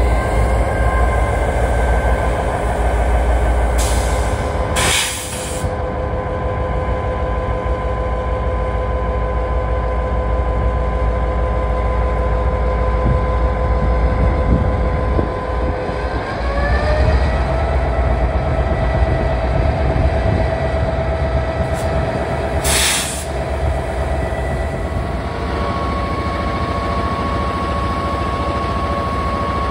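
Diesel locomotive engines running on a load test, the engine note and its whine stepping up in pitch about half a second in and again about sixteen seconds in, holding steady between. Two short hisses of air cut across it, about five seconds and twenty-three seconds in.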